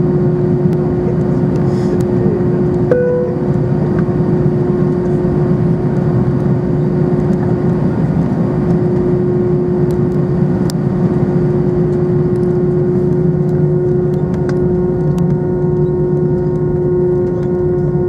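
Airbus A320 engines and airflow heard from inside the aircraft: a steady drone with a constant hum over a low rumble, with a short higher tone about three seconds in.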